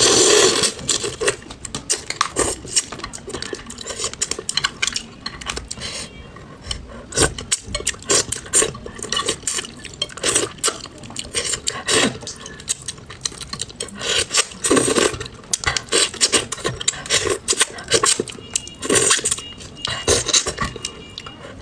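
Close-miked eating of braised bream: a loud slurp in the first second, then wet chewing, sucking and smacking as flesh is stripped from the fish bones, with chopsticks clicking against the plate.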